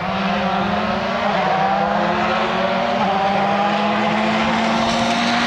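Volkswagen Polo GTI R5 rally car's turbocharged four-cylinder engine running at high revs as the car approaches. The pitch holds nearly steady, shifting slightly a couple of times, and the engine grows a little louder.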